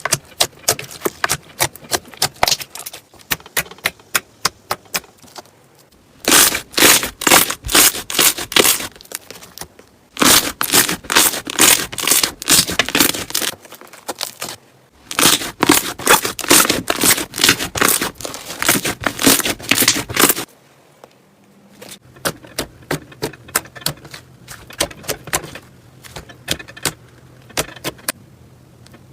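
Slime being squeezed and pressed by hand, making dense runs of sharp crackling clicks and pops. The clicks come in several separate stretches with brief quieter gaps between them.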